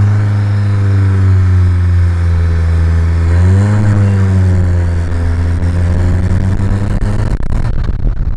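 Engine of the homemade EXO-1 car, with a free-flow downpipe exhaust, heard from inside the glassless cabin while driving: a steady engine note that rises as it accelerates about three and a half seconds in, then slowly falls. Near the end it fades into a rushing noise.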